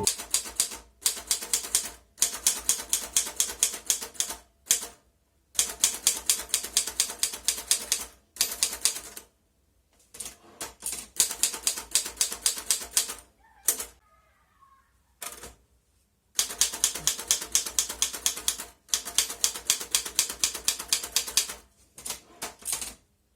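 Erika model 15 typewriter being typed on: quick runs of sharp keystrokes, several a second, broken by short pauses.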